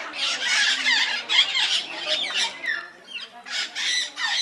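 A crowded aviary of parrots, parakeets and cockatoos squawking and screeching all at once, many loud calls overlapping, with a brief lull about three seconds in.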